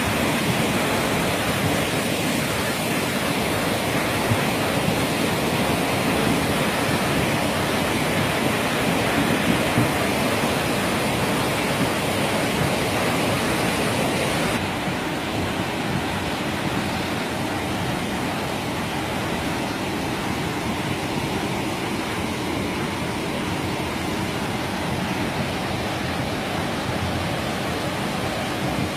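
Steady rushing noise of muddy floodwater pouring down a road. About halfway through it changes to a slightly quieter, duller rush.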